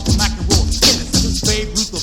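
1990s hip hop / funk dance music with a steady beat, heavy bass and chopped vocal samples.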